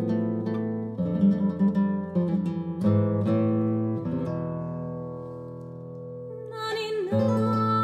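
Acoustic guitar playing a slow lullaby introduction in plucked notes and chords. The last chord rings out from about four seconds in. Near the end a soprano voice comes in and holds a high note over the guitar.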